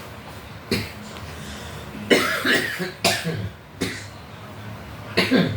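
A man coughing in repeated fits: one cough about a second in, a longer run of coughs around two seconds in, two more single coughs, and a final fit near the end. It is a fresh cough that only started the same day.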